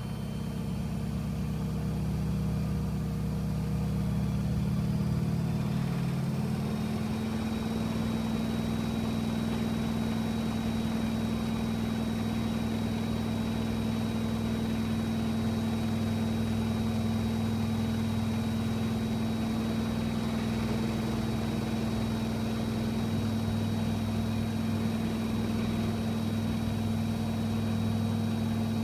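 AEG Öko-Lavamat 85739 washing machine in its final spin: the drum speeds up over the first several seconds, then holds at high speed with a steady hum and a thin high whine.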